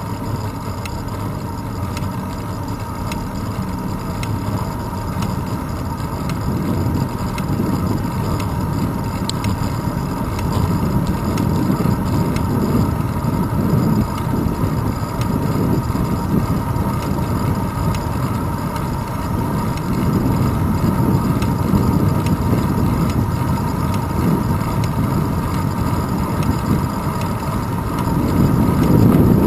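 Wind buffeting the microphone of a handlebar-mounted GoPro Hero 2 on a moving bicycle, mixed with tyre rumble on asphalt. It comes as an uneven low rumble that swells about six seconds in and again near the end, over a faint steady high tone.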